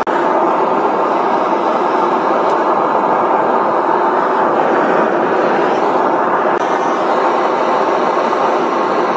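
Propane burner of a Devil Forge melting furnace running, a loud, even rush of gas flame.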